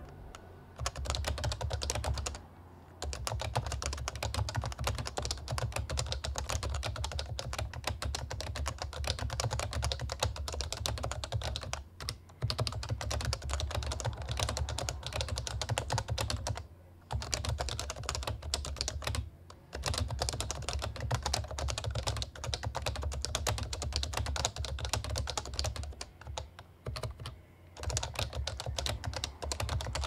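Continuous typing on an HHKB Pro Classic keyboard with Topre electrostatic capacitive switches: a dense run of muted, bassy keystrokes, broken by a few brief pauses.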